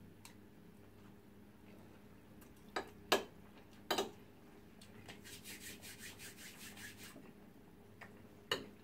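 Cutlery on a plate of rice: a few sharp clinks about three to four seconds in, then about two seconds of fast, even scraping, over a faint steady hum.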